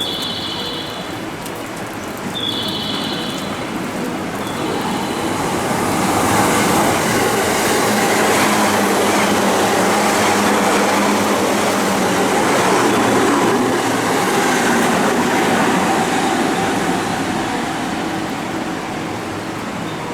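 Electric train running along the line through the station: the rumble and wheel noise build over a few seconds, stay loud for about ten seconds, then fade near the end. A short high tone repeats twice near the start.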